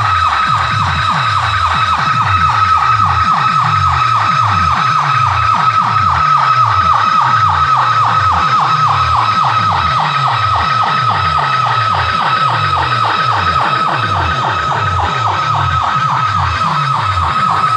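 Electronic DJ competition track played loud through a large loudspeaker sound system. Quick falling bass sweeps repeat about three times a second under a steady, siren-like high whine that pulses rapidly.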